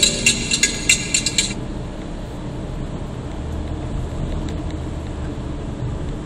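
Music with a tambourine-like rattle that stops about a second and a half in, leaving the steady low rumble of road noise inside a moving car's cabin.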